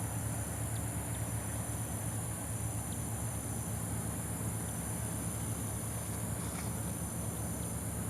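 Steady background of an insect chorus, a constant high-pitched drone over a low hum, with a few faint ticks.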